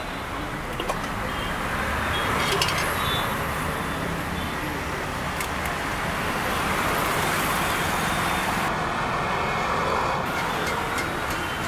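Steady roadside traffic noise that swells a little and eases, with a few faint clicks.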